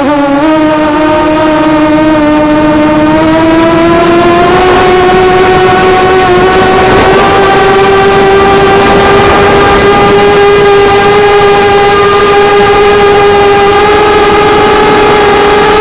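QAV250 racing quadcopter's Cobra 2204 2300kv brushless motors spinning 5045 bullnose propellers in flight: a loud, steady buzzing whine whose pitch climbs gradually over the first few seconds, then holds.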